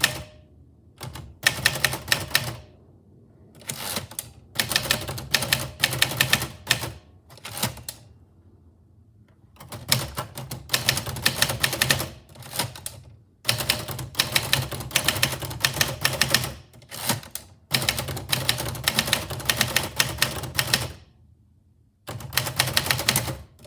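Typewriter keys striking in quick runs of a second or two, with short pauses between the runs.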